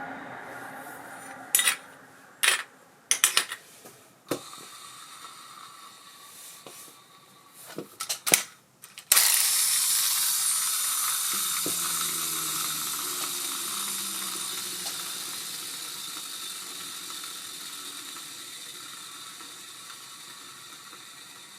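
A few sharp clicks and clacks, then about nine seconds in the spool of an Ambassadeur 5500C baitcasting reel is spun up and whirs freely, fading steadily as it slows. With a new genuine ABU bearing cog wheel fitted, it runs with only the bearing sound and no knocking.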